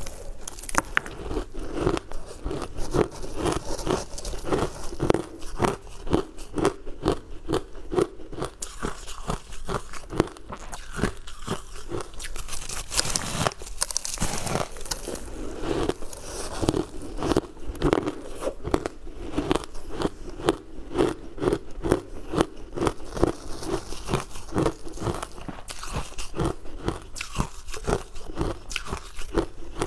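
Refrozen ice chunks coated in matcha powder being bitten and chewed: a dense run of crunches, several a second, continuing without pause.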